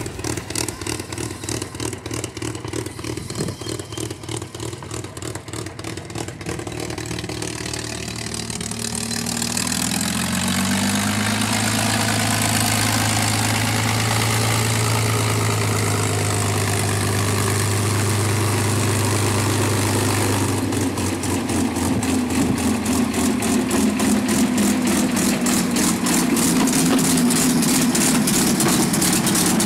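A P-51 Mustang's Packard Merlin V12 engine running on the ground at low power. Its pitch rises about a third of the way in and holds steady, and near the end its firing beats become more distinct again.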